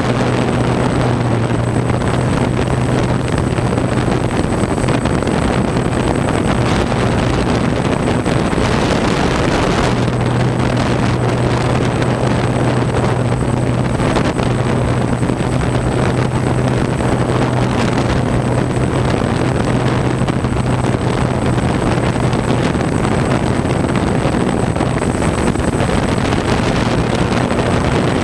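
Multirotor drone's motors and propellers hovering, heard from its own onboard camera: a steady low hum under a loud, even rushing noise, with a faint high whine. The hum weakens about four seconds in and returns about ten seconds in.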